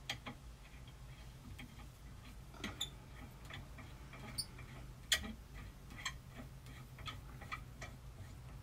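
Faint, irregular small clicks as a coiled-spring handle is screwed by hand onto a multi-fuel stove's door.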